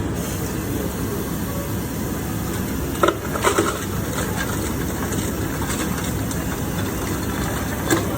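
Steady street traffic rumble, with a few short sharp sounds about three seconds in and one more near the end.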